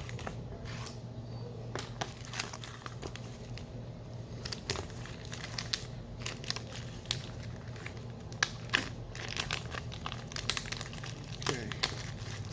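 Hand work on BMW N20 timing-chain parts: irregular clicks and light taps of parts being handled, over a steady low hum.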